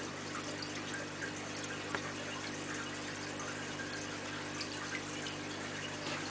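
Aquarium water circulating, a steady trickling and splashing with faint scattered drips, over a constant low hum from the tank's pump or filter.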